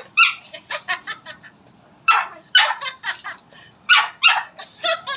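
Small dog barking in quick, high yaps, coming in clusters of two or three with quieter yips between: excited play barking.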